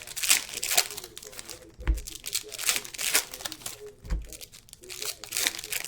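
Trading-card pack wrappers and packaging crinkling and tearing as packs of Panini Optic football cards are handled and opened. Two dull thumps come about two and four seconds in.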